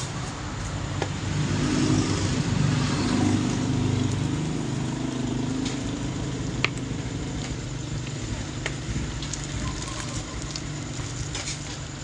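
A low engine rumble that swells over the first few seconds and then eases off, with a few sharp clicks of plastic being handled.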